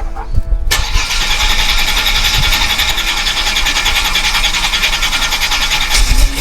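Holden Commodore's 3.8-litre V6 being cranked by its starter motor in a fast, even rhythm after seven years off the road, then catching and firing into a low running rumble about six seconds in.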